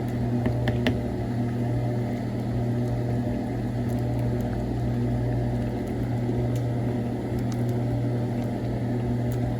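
A steady low machine hum with a constant hiss, with a few faint clicks.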